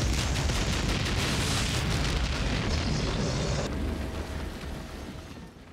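Long explosion roar: a deep rumble with crackling that dies away over the last couple of seconds.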